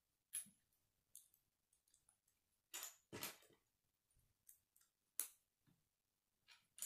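K'nex plastic connectors and rods clicking as they are handled and snapped together: a handful of short, irregularly spaced clicks.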